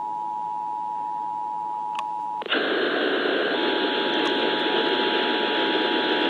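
Emergency Alert System two-tone attention signal over a radio broadcast: a steady dual tone that cuts off about two and a half seconds in, giving way to a loud hiss of static. A single steady tone comes back under the hiss about a second later.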